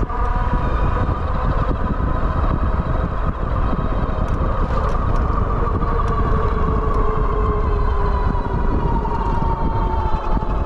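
Wallke H9 AWD e-bike's hub motors whining under power while riding, a steady tone that slides slowly down in pitch over the last few seconds, over a constant rumble of wind and road noise.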